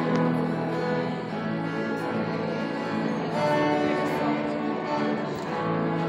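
Church hymn music with guitar accompaniment, held notes changing every second or so.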